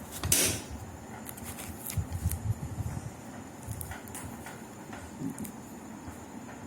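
Handling noises: a short scraping rustle about half a second in, then scattered light clicks and soft knocks.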